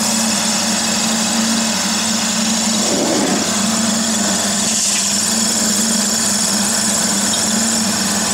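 Floating fish feed extruder running steadily: a continuous machine drone with a steady hum from its electric motor and screw.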